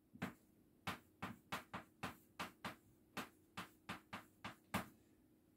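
Chalk tapping on a chalkboard while Korean letters are written: a quick, irregular run of about seventeen faint, short taps.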